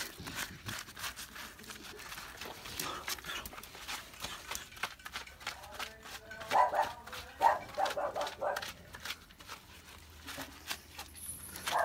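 A dog giving a run of short, high-pitched cries, bunched together about two-thirds of the way through, over scattered small clicks.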